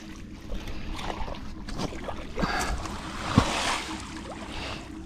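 Water splashing and sloshing around a small fishing boat, with scattered splashes and one sharp knock a little past the middle.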